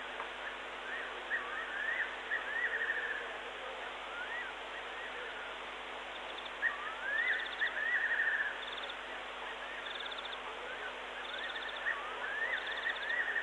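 A night bird calling three times: each call is a few rising whistles ending in a rapid run of notes, repeated about every five seconds. Short, evenly pulsed higher chirps come and go over a steady hiss.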